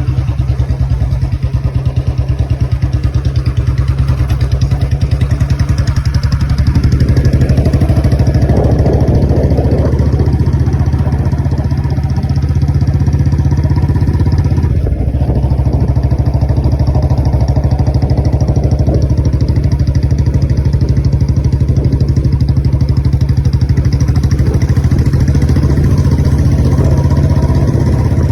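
Royal Enfield Bullet 350's single-cylinder four-stroke engine running at a steady idle with even firing pulses. Its note gets fuller twice, about a quarter of the way in and again past halfway, as the throttle is opened a little.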